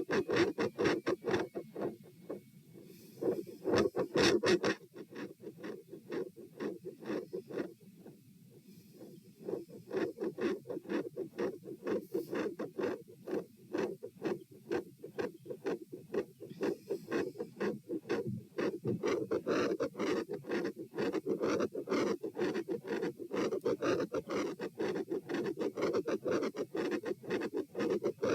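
Heartbeat heard through a stethoscope at the pulmonic area: quick paired lub-dub heart sounds (S1 and S2), about two beats a second, during the raised-rate part of a stress test. A few seconds in, the beats drop in level for several seconds, with a few loud knocks and some scratchy rubbing of the chest piece; then the fast beat returns loud and steady.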